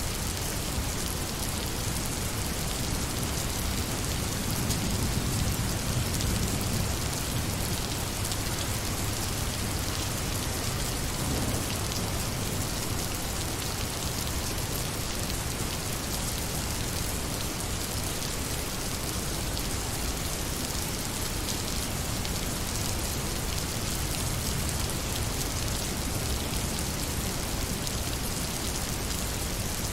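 Steady rain falling, a dense even patter of drops on surfaces, with a slight low swell about five seconds in.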